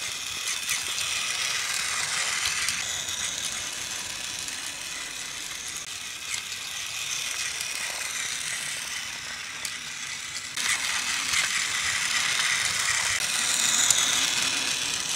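Battery-powered toy Thomas engine running along plastic track, its small motor and gears whirring with a steady rattle. It gets louder about ten and a half seconds in and is loudest near the end.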